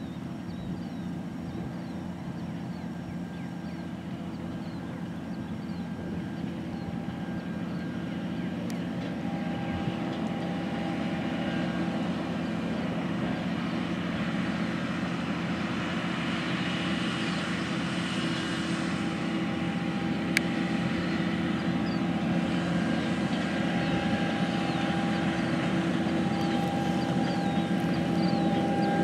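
John Deere 9520RX four-track tractor's diesel engine running steadily under load as it pulls a wide corn planter, growing louder as it comes closer.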